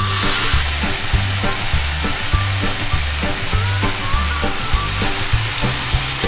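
Tomato purée, then broth, poured into a hot pan of frying rice: a loud sizzle that flares as the purée lands, then a steady sizzle under the pour. Background music with a steady bass beat plays underneath.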